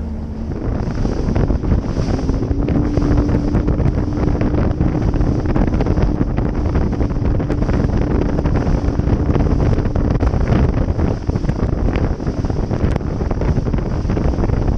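Loud wind noise on the microphone of a bass boat running fast over choppy water, with frequent knocks of the hull hitting the chop. Under it, the outboard engine's hum rises in pitch over the first couple of seconds, then holds steady.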